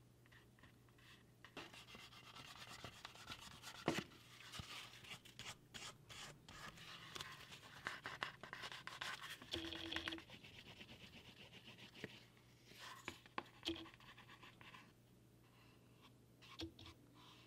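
A cloth rubbing briskly back and forth over a piece of shell cordovan leather, a soft dry scratching that stops a little after two-thirds of the way through, with a few light clicks of handling.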